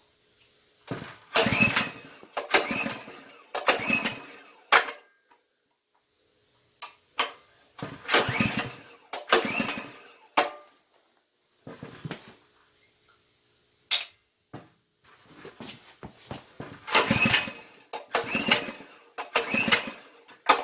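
Powerfist 208cc single-cylinder small engine being pull-started: a run of recoil-rope pulls, about a dozen, each cranking the engine over briefly without it catching. The pulls come in groups of two or three with pauses between; the engine still needs priming.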